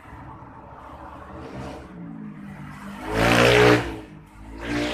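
An engine revving up twice, pitch rising, the louder rev about three seconds in and a shorter one near the end.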